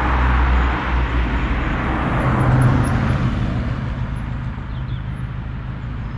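1977 Renault 5's engine running, a steady low engine note under a haze of road noise, growing gradually fainter toward the end.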